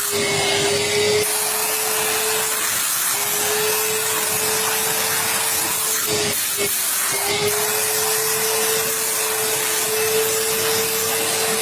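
Steam-vacuum cleaning machine running: a steady motor whine under a loud hissing rush of suction and steam, the whine dipping briefly twice.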